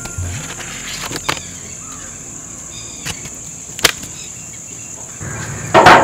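Crickets or similar insects trilling in a steady high drone, with a few sharp clicks and taps scattered through, and a louder brief rustle or thump near the end.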